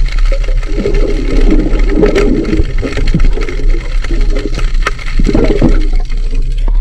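Water churning and sloshing close to the microphone in irregular swells, with scattered clicks, over a steady low hum.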